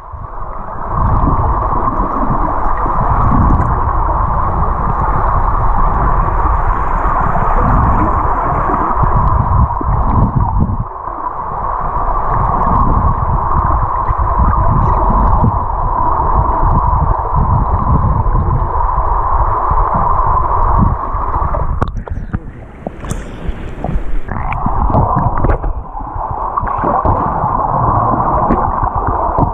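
Underwater noise of a swimming pool picked up by a submerged camera: a steady mid-pitched hiss over a shifting low rumble. The hiss drops out briefly about 22 seconds in, with a short burst of higher noise, then returns.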